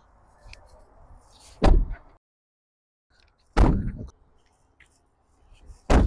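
Tesla Cybertruck door pulled shut by its add-on handle, three closings about two seconds apart, each a single loud thud.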